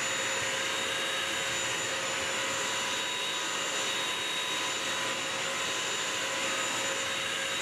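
BISSELL Crosswave wet/dry vacuum running steadily, its motor giving a high-pitched whine over a broad hiss of suction, as its brush roll scrubs a sealed hardwood floor.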